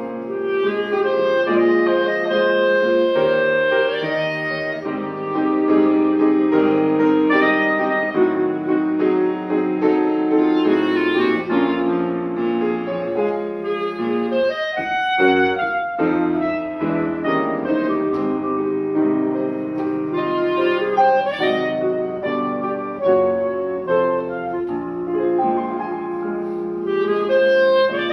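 Instrumental music with a woodwind melody over piano. It plays throughout, with a short break about halfway.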